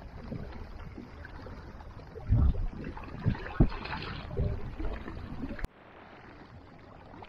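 Outdoor shoreline ambience: uneven gusts of wind thump on the microphone over a steady hiss. About six seconds in, a sudden cut drops it to a quieter background.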